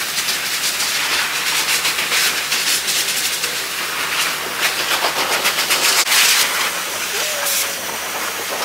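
Pet grooming dryer blowing a loud, steady rush of air through a hose onto a wet dog's coat, with a rapid flutter as the nozzle works through the fur.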